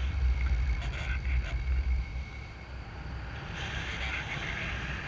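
Wind rushing over the microphone during a paraglider flight, a low, buffeting rumble under an even hiss, strongest in the first two seconds and easing after.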